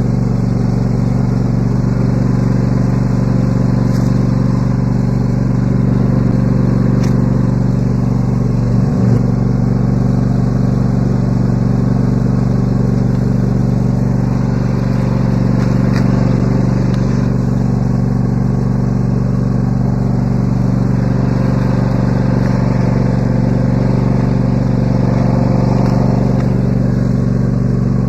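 Riding lawn mower engine running steadily, with a brief dip in pitch about nine seconds in.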